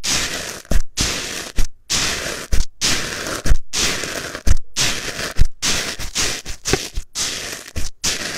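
Crunchy, grainy slime crackling as it is pressed in, about once a second. Each press is a crisp burst of crunching that ends in a low thud.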